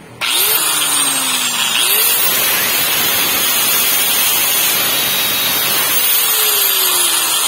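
Metabo angle grinder's electric motor switched on and running after a no-power repair: it starts abruptly about a quarter second in and holds a steady level, with a whine that sweeps up and then slowly falls, twice.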